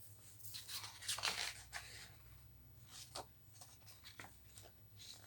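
Faint paper rustling and soft handling clicks as a picture book's page is turned, over a steady low hum.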